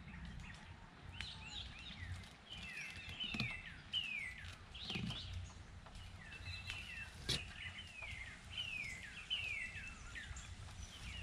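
A songbird singing nearby: phrases of clear whistled notes, each sliding down in pitch, repeated several times over. A few sharp clicks sound in between.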